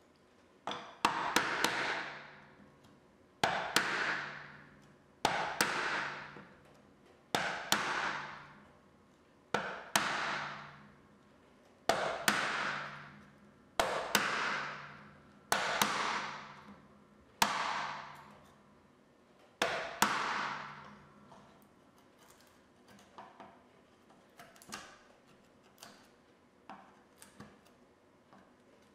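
A bench chisel driven by a brass-headed mallet, chopping out a groove across a hardwood board: about ten blows, roughly every two seconds, each a sharp crack followed by a fading rush. After them come only light, scattered clicks as the chisel is pared by hand.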